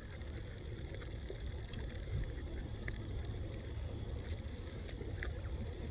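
Low rumble of wind buffeting the microphone, with faint open-air background and a few faint short ticks.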